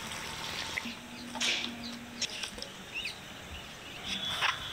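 Outdoor background noise with a few short bird chirps and two brief sharp knocks, one about a second and a half in and one near the end.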